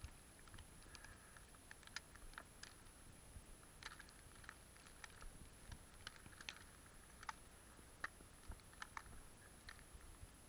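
Near silence: faint, irregular ticks and light crunches, several a second, over a steady faint high-pitched whine.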